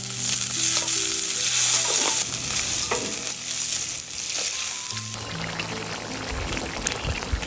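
A pot of spicy-sour broth boiling hard over high heat with rice noodles cooking in it, a dense bubbling sizzle, with a few short knocks as the noodles are stirred.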